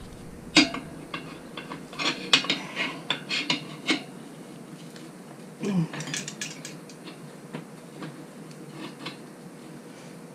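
Metal clinks and knocks from a tire-changing stand and its mounting tool against a motorcycle wheel rim as a knobby tire's bead is levered on, in two clusters of quick strikes with scattered single taps.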